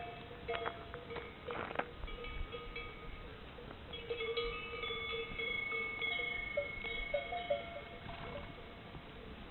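Bells worn by a herd of cows, many at different pitches, clanking and ringing irregularly with long ringing notes that overlap and sound like gamelan gongs and bowls. A few sharper clanks come in the first two seconds.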